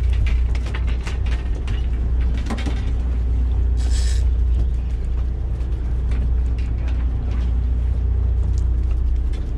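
Sportfishing boat's engine running with a steady low drone, with scattered clicks and knocks from the deck and tackle and a short hiss about four seconds in.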